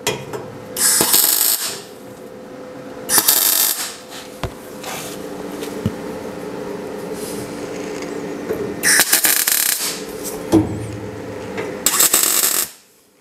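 MIG welder tack-welding steel: four short bursts of arc noise, each about a second long, with a steady hum between them.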